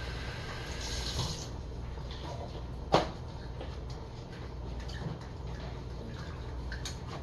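Kitchen water running briefly for about the first second and a half, then a single sharp knock about three seconds in, over a steady low hum.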